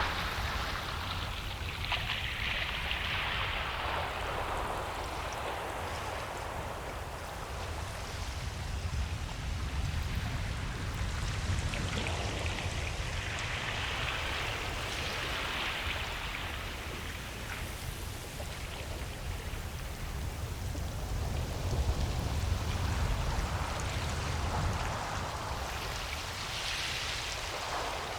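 Ocean waves breaking and washing up a beach: a continuous hiss of surf that swells as a wave breaks, about every twelve seconds, over a steady low rumble.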